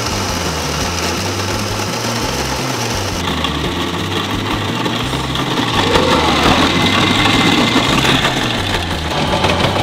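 Electric shaved-ice machine's motor running and grinding ice, a steady loud mechanical whir with a rough rattle as the shaved ice sprays out.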